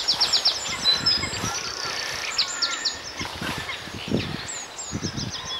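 Several small birds singing: quick repeated high chirps, with a fast falling trill right at the start. Soft low rustles and knocks sound close by underneath.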